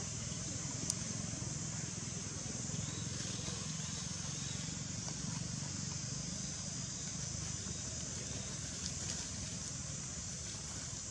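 Steady outdoor background noise: a continuous high hiss over a low rumble, with a single sharp click about a second in.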